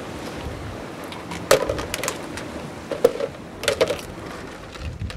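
Hard shellfish bait handled in a plastic bucket of water, giving several sharp clacks and cracks over a steady rushing background of surf and wind.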